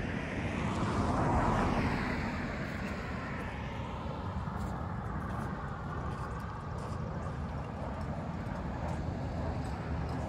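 A vehicle passing by, its noise swelling to a peak about a second and a half in and then fading into a steady low rumble.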